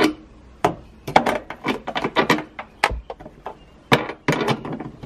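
Uneven clicks, clinks and knocks of a rear seatbelt buckle's metal anchor and its loosened bolt being handled and lifted off the floor-pan anchor point.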